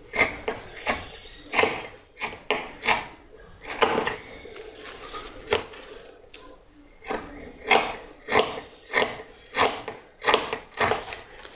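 Fabric scissors snipping through several layers of quilted cloth and lining: a run of sharp snips at an uneven pace, about one or two a second, with a short lull in the middle.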